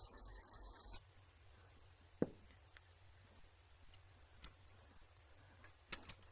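A steady hiss cuts off sharply about a second in. It is followed by one sharp tap about two seconds in and a few faint clicks near the end.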